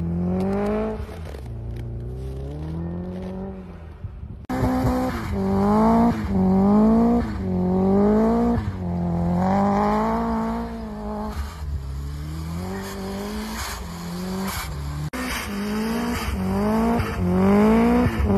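Subaru Impreza's flat-four boxer engine revving hard and dropping again over and over, about once a second, as the car spins and slides through deep snow. The sound cuts off abruptly twice.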